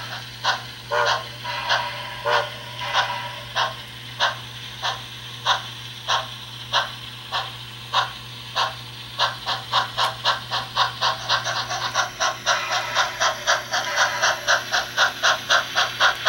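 Model steam locomotive chuffing, the beats quickening steadily as it gathers speed, over a steady low hum.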